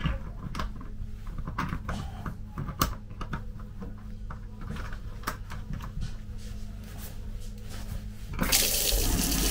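Steady low hum with scattered clicks and knocks, then water suddenly starts running hard from a tap in a train carriage with a loud rush that keeps going.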